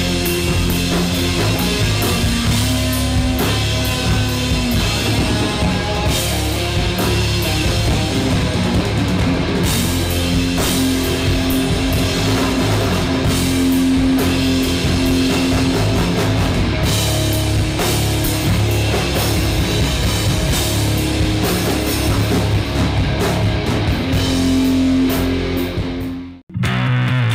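Rock backing music with guitar and drums. It cuts out for an instant near the end, then the music picks up again.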